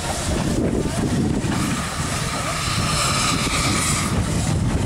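Train of old passenger coaches hauled by a steam locomotive rolling past along the track, a steady rumble of wheels and running gear with hiss on top.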